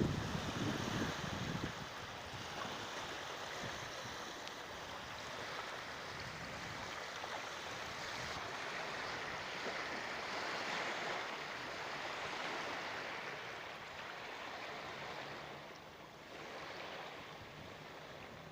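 Wind-driven waves lapping and splashing on open water, with wind gusting on the microphone. The rushing swells and eases without a break, and is softest a little before the end.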